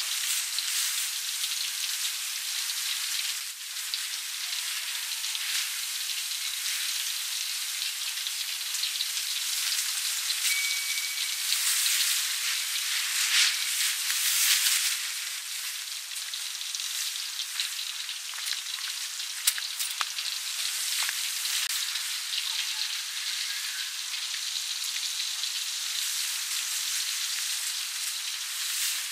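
Battered duck pieces deep-frying in hot oil in a wok: a steady sizzle and crackle with scattered sharp pops, swelling louder a few times around the middle.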